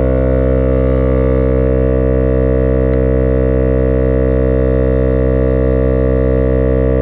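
Viair 88P portable 12-volt air compressor running steadily as it pumps up a soft truck tire, a loud even drone of the motor and piston.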